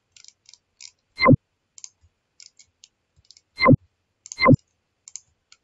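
Computer mouse clicking: a scattered run of small, light clicks. Three much louder sharp knocks cut in, about a second in and twice more around three and a half to four and a half seconds in.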